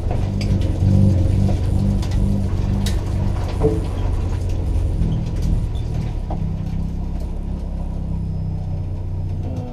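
Hyundai Excel hill-climb car's four-cylinder engine running at low revs, heard from inside the roll-caged cabin as the car is driven slowly. It throbs regularly for the first few seconds, then settles to a steady hum.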